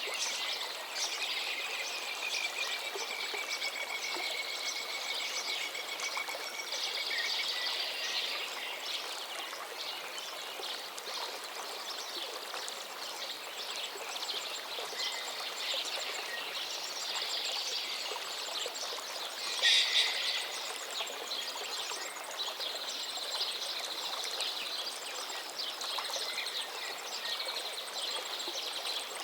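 A river flowing steadily, with birds chirping and singing over it. One brief, louder burst of calls comes about two-thirds of the way through.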